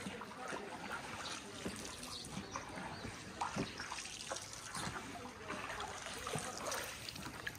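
Floodwater trickling and lapping softly around a small boat being paddled through it, with scattered small splashes and drips.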